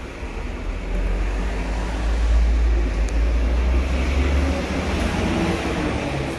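Steady low rumble and hum of a 1960s Schindler traction lift as the car arrives at the landing and its doors slide open.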